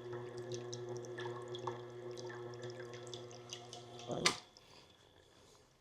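Electric motor of a powered guided knife-sharpening system running with a steady hum, with light ticking as the blade works the abrasive; about four seconds in it is switched off with a loud clunk and the hum stops.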